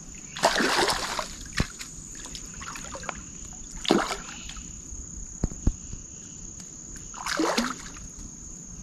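Hooked fish splashing at the water's surface as it fights the line: a longer splash near the start, a short one about four seconds in and another near the end. A steady high insect drone runs underneath.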